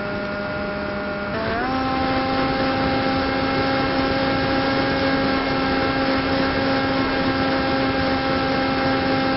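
Electric brushless motor (2212 size) spinning a 7x4 APC propeller on an RC flying wing, a steady buzz over a rush of air, recorded onboard. The pitch steps up quickly about a second and a half in as the throttle is raised, then holds steady and slightly louder.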